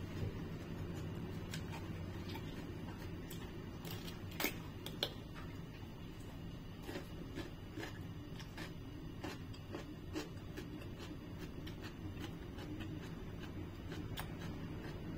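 Raw cucumber being bitten and chewed: scattered small crisp crunches and clicks, with two louder crunches about four and a half and five seconds in, over a steady low room hum.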